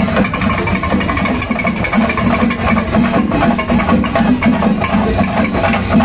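Loud music with steady drumming.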